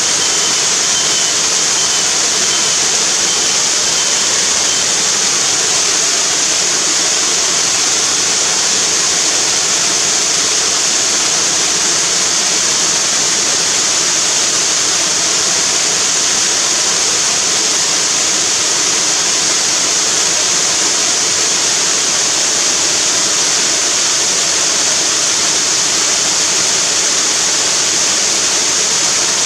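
River waterfall: a loud, steady, unbroken rush of falling water.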